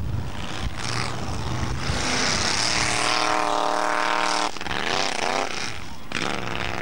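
Engine of an off-road hill-climb buggy working hard up a steep slope. It holds a steady high note for a couple of seconds, then the revs swing up and down.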